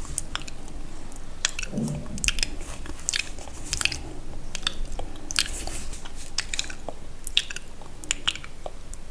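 Close-miked ASMR mouth sounds: wet, sticky clicks and smacks of lips and tongue, coming irregularly several times a second.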